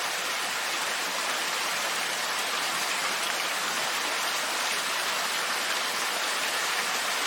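AI-generated heavy-rain sound effect: a steady hiss of downpour, with no dog barking or thunder in it.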